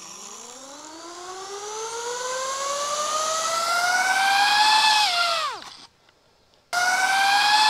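DJI FPV drone's motors spinning its two free propellers in turtle mode to flip it back over from upside down: a whine that rises steadily in pitch for about five seconds, then drops away and stops. About a second later a second spin-up starts abruptly near the end.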